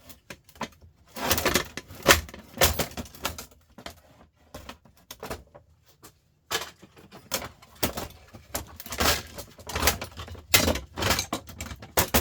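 Irregular clatter and knocks of hard parts being handled as a sandwich maker is opened up, with a quieter pause in the middle.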